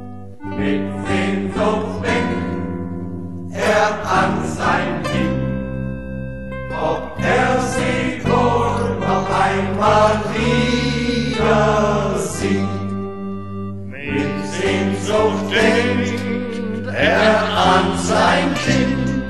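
A choir singing a German Heimatlied, a homeland folk song, in phrases over instrumental accompaniment.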